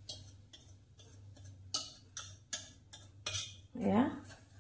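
Wire whisk clicking and scraping against a non-stick pan as milk mixture is stirred, in uneven strokes about three a second.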